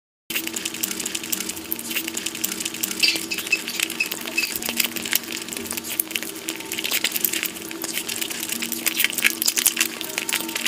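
Close-miked eating sounds: chewing, crunching, lip smacks and sucking as a person bites meat off chicken pieces on the bone. The clicks come thick and uneven throughout, over a faint steady hum.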